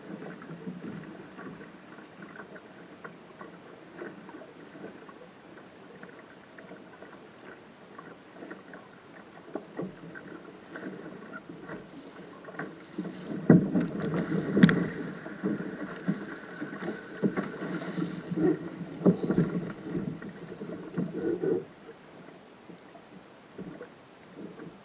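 Water splashing and rushing against the hull of a small single-handed sailing dinghy under way, with scattered knocks and rattles from the rigging and fittings. The splashing grows louder a little past halfway and eases off again near the end.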